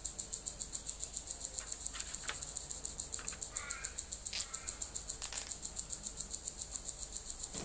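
A fast, steady, high-pitched pulsing buzz. Over it come a few short clicks and ticks from a nylon cable tie being handled and threaded around the balun's wire windings, and a brief chirping bird call about a third of the way through.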